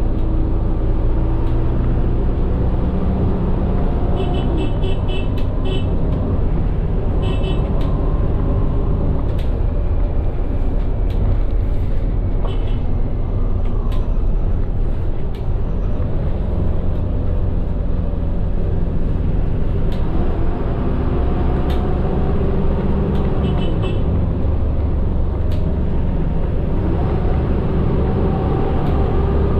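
Medium bus engine and drivetrain running while driving, heard from inside the cabin as a steady low rumble whose pitch slowly rises and falls with engine speed. A few light clicks sound at times over it.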